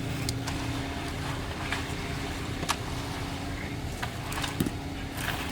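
An engine running steadily with a low hum and a steady tone, with scattered sharp clicks and knocks over it.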